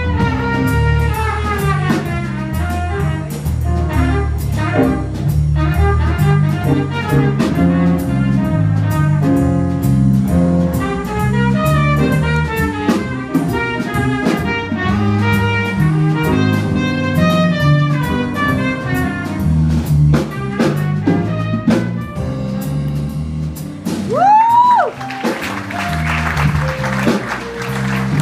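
Live jazz band playing, with drum kit, keyboard and horns over a walking low end. About four seconds before the end one voice slides sharply up and back down, followed by a noisy wash.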